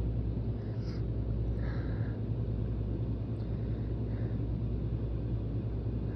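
A steady low background hum, with a person's short faint breaths in about a second, two seconds and four seconds in, as a tickly nose builds toward a sneeze.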